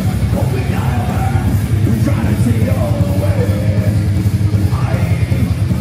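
A heavy metal band playing loud and live: distorted guitars, bass and drums, with a voice singing or shouting over them.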